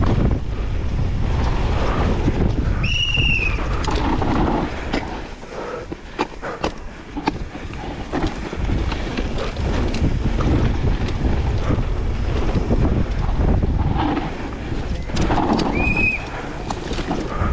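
Wind buffeting the microphone over rattling and knocking from a downhill mountain bike riding a rough track, with two short high squeals, one about three seconds in and one near the end.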